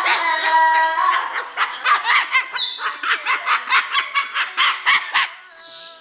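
Umbrella cockatoo calling in a fast, even run of short squawks, about four a second, singing to the beat the way she was taught.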